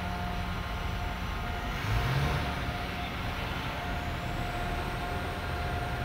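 Steady machinery hum with a constant whine from working harbour cranes, with a brief louder swell about two seconds in.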